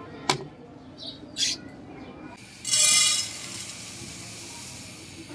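Kitchen handling sounds: a sharp knock early on, then dry split yellow lentils poured into a coated metal pan, a loud rattling hiss about two and a half seconds in that settles to a softer patter as the pile builds.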